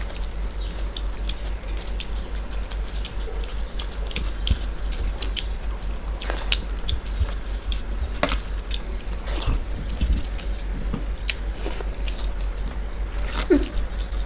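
Wet, sticky eating sounds: fingers squishing soft rice-and-lentil khichuri against steel plates, and mouths chewing and smacking, giving many small clicks and squelches. A steady low hum runs underneath.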